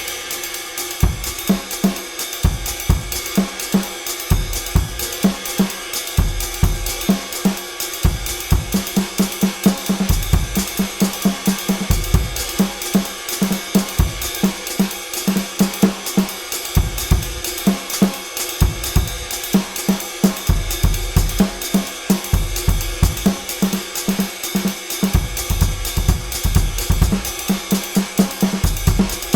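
Sampled acoustic drum kit played live as a full groove: cymbals and hi-hat ringing throughout over steady kick drum hits, with short runs of rapid drum strokes now and then. The sounds are Addictive Drums 2 samples triggered from an EFNOTE 5 electronic drum kit.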